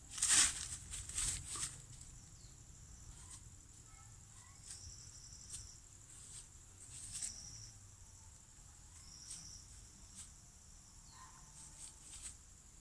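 Insects buzzing steadily at a high pitch, with a short high chirp every couple of seconds. In the first second and a half, a few loud rustles and knocks stand out over the buzz.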